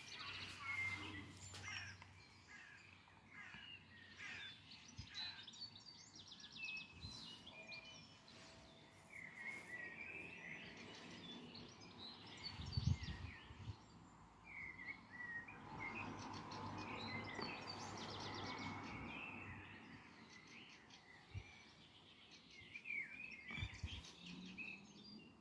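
Faint outdoor ambience with small birds chirping and trilling on and off. About halfway through there is a brief low thump, followed by a few seconds of soft rushing noise.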